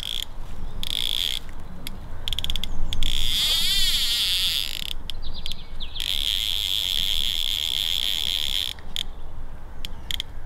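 Fly reel's click-and-pawl drag buzzing in bursts as a hooked trout takes line off the spool, with a few short spurts and two longer runs, the click rate speeding up and slowing down.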